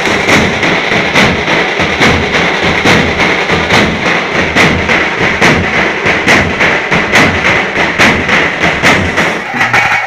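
Loud, fast drumming from a group of drums beaten together, with a heavy accent about once a second over dense quicker strokes.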